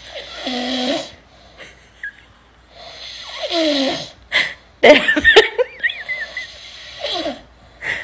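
A man snoring loudly through an open mouth, one long snore every two to three seconds, with a louder, rattling burst about five seconds in.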